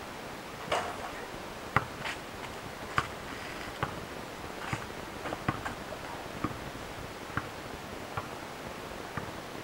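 A basketball bouncing on an asphalt street: a string of sharp thuds at uneven spacing, roughly one a second, over a steady hiss.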